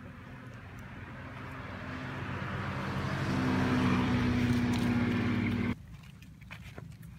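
A passing motor vehicle's engine running steadily, growing louder as it approaches, then cutting off suddenly near the end.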